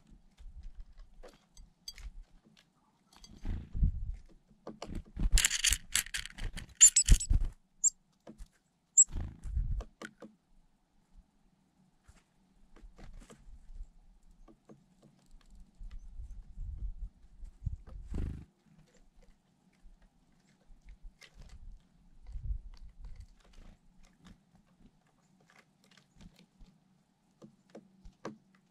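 Gusts of wind buffeting the microphone in irregular low rumbles. A louder rustling hiss comes about five to seven seconds in, and a few very brief, high chirps follow.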